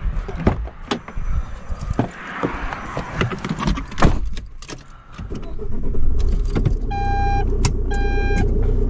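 Clicks, knocks and key jangles as someone climbs into a motorhome's cab, then the engine starts about five and a half seconds in and runs with a steady low rumble. About a second and a half later the reversing alarm begins beeping about once a second as the vehicle is put in reverse.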